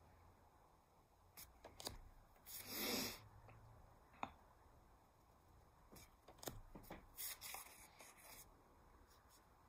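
Paper index cards rustling and sliding as one flash card is swapped for the next, a longer swish about three seconds in and more rustling about seven seconds in, with a few light clicks and taps of handling. Otherwise near silence.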